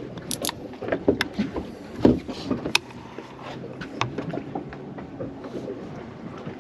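Scattered knocks and clicks of handling on a fishing boat's deck over a steady low hum, with a sharp knock about two seconds in.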